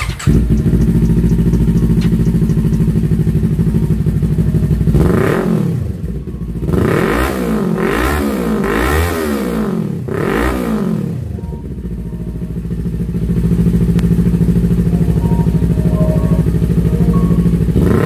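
Kawasaki Ninja 400's parallel-twin engine idling through a Yoshimura Alpha slip-on exhaust with the dB killer removed (open pipe). Between about five and eleven seconds in, it is revved in several quick throttle blips that rise and fall in pitch, then it settles back to a steady idle.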